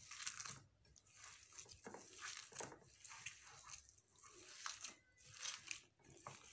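Hands kneading and rubbing ground almond paste with butter in a glass bowl: faint, irregular squishing and gritty rubbing.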